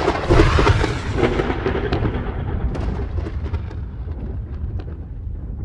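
Thunder sound effect: a loud crack opening into a long low rumble that slowly fades, with scattered sharp crackles in the second half.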